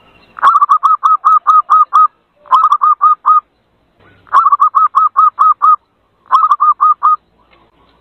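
Zebra dove (perkutut) lure call: four bursts of rapid, evenly spaced staccato notes, about six a second, played as a lure to draw in zebra doves.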